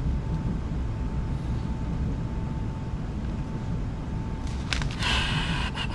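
Steady low rumble of a moving commuter train carriage, with a thin steady whine that drops out a little past four seconds in. A brief hiss follows about five seconds in.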